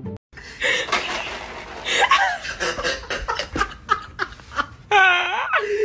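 A person laughing hard in quick, breathy bursts, rising to a high, wavering laugh near the end.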